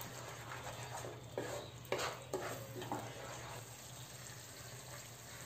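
Wooden spatula scraping and stirring a thick tomato-and-spice masala in a kadai, over a faint sizzle of the butter it is frying in. The masala is being fried down. A few stirring strokes fall in the first three seconds, then only the soft sizzle is left.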